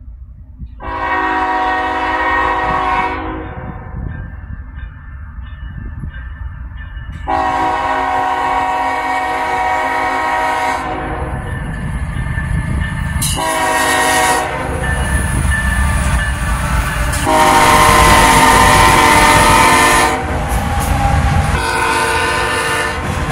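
Norfolk Southern diesel freight locomotives sounding their horn as they approach: long, long, short, long, the pattern for a grade crossing, then another blast begins near the end. Between blasts the engines rumble and the wheels run on the rails, louder as the train passes close.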